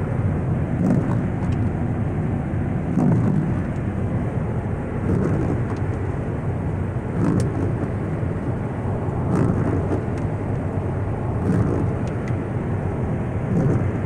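Car cabin road noise while driving at highway speed on a wet, slushy road, a steady low rumble of tyres and engine. A faint swish from the windshield wipers sweeps about every two seconds.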